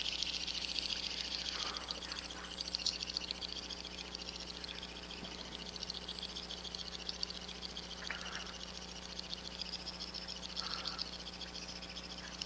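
Steady, fine crackling hiss of fluid being drawn through the arthroscopic shaver's suction during knee arthroscopy.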